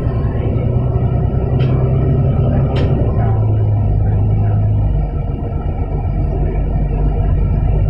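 Volvo B9TL double-decker bus's six-cylinder diesel engine running on the move, heard from inside the passenger cabin as a steady low drone. Two sharp clicks come in the first three seconds, and the engine note changes about five seconds in.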